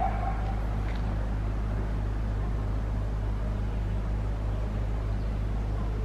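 Steady wind rumble and hiss on the microphone, with a short high call right at the start.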